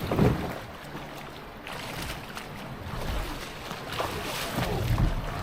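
Steady rush of river water and wind noise around a kayak, with a few light knocks.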